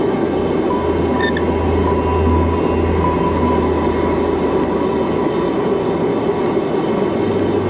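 Forge running: a steady rumbling roar with a low hum underneath and no hammer blows.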